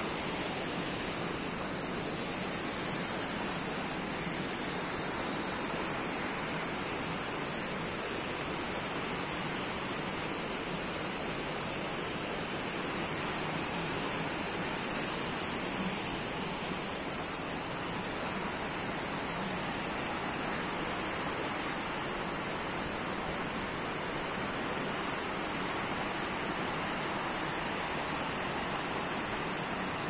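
Shallow rocky stream running over and between boulders: a steady, even rush of water.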